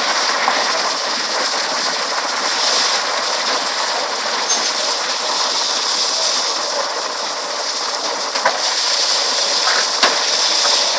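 Burst water main gushing up through the road with a steady rushing hiss, and two short sharp clicks near the end.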